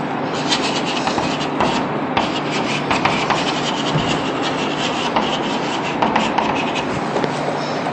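Chalk writing on a blackboard: a quick, irregular run of short scratching strokes and taps as a line of words is written, over a steady background hiss.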